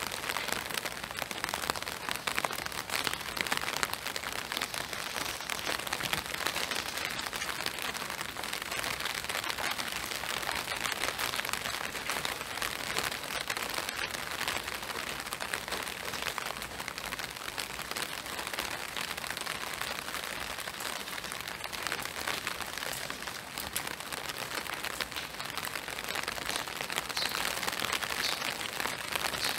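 Steady spring rain falling, an even hiss made of many fine drops.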